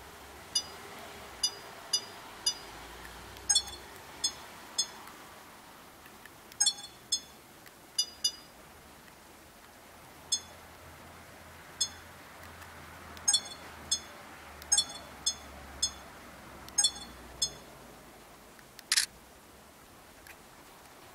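Sony HDR-AS30V action camera beeping with each press of its PREV/NEXT buttons as its menu is stepped through: about twenty short, high beeps, some in quick pairs. Near the end there is one louder electronic shutter sound as it takes a photo.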